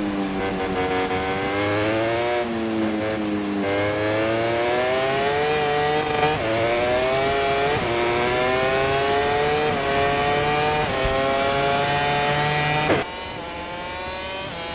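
MotoGP racing motorcycle engine heard from onboard at full throttle: the revs climb and fall back with each of several quick upshifts. Near the end the throttle is shut and the engine sound drops sharply and gets quieter.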